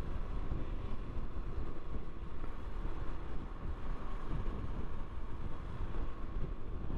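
KTM 390 Adventure's single-cylinder engine running steadily while the motorcycle is ridden, with wind rumbling across the microphone.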